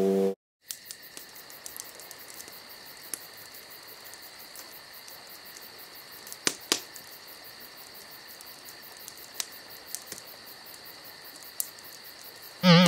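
Crickets chirping in a steady, fast-pulsing high trill, with a few faint clicks. Just before the end a loud wobbling boing starts.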